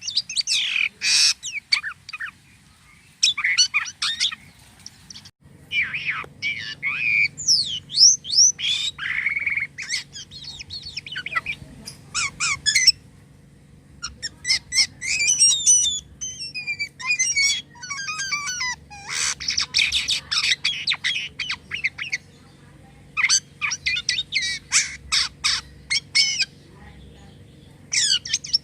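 Jalak kapas starling singing in bursts of harsh squawks, rapid clicking chatter and quick gliding whistles, with short pauses between phrases.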